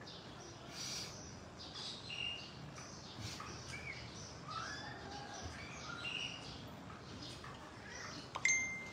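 Small birds chirping in scattered short calls over a quiet background. Near the end comes a sharp click followed by a brief ringing tone.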